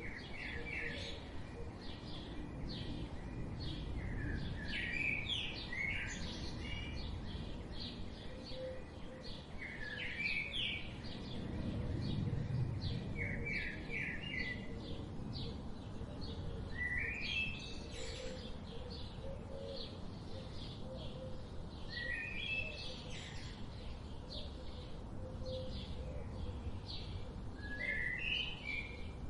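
Forest birdsong: short rising, stepped phrases come every few seconds over a continuous chatter of quick high chirps, with a low steady rumble of background ambience beneath.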